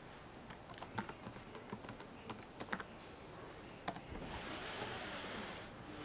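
Typing on an early-2008 MacBook Pro's keyboard to enter a login password: a run of irregular key clicks over about three seconds, followed near the end by a soft rushing hiss.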